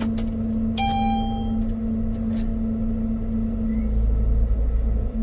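Vehicle engine running steadily, with a deep rumble that grows louder about four seconds in. A brief high tone sounds about a second in.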